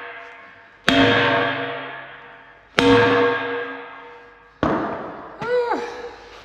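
Three sledgehammer blows, about two seconds apart, driving a chilled steel bushing into the bore of a dozer blade. Each strike rings out like a bell and dies away slowly.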